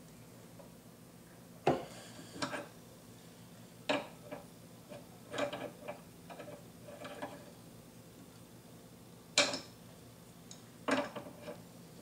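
Sharp metal-on-metal clinks and clanks, a second or two apart at irregular spacing, from an adjustable wrench being worked and repositioned on the screw of a roller-chain breaker tool held in a bench vise as it presses a rivet out of the chain.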